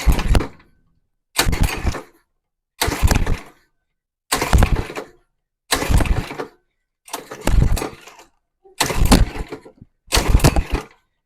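Small mini-bike engine being pull-started again and again, about eight pulls, one every second and a half, each turning it over briefly without it catching.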